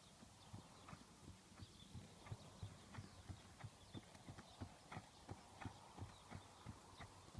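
Hooves of a barefoot horse, its shoes just taken off, trotting on hard, uneven grass ground. The hoofbeats are faint and evenly spaced, about three a second.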